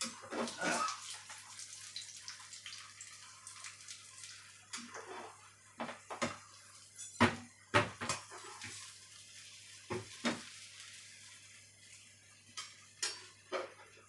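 A metal spatula knocking and scraping against frying pans, about a dozen scattered clinks, over a steady sizzle of an omelet frying in oil.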